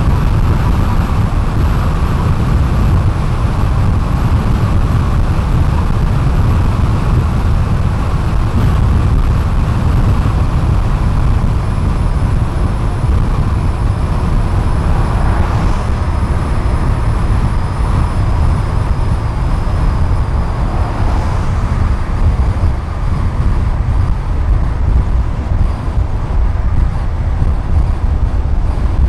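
Steady road noise of a car driving along a highway, a constant deep rumble with tyre and wind hiss over it.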